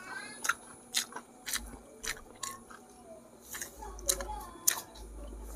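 Close-miked chewing of a mouthful of rice and goat-head curry, with a string of irregular wet mouth clicks and lip smacks.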